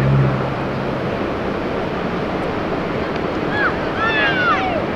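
Wind buffeting the microphone, a steady rushing noise. A low hum fades out in the first second, and a few short, arching high-pitched calls come near the end.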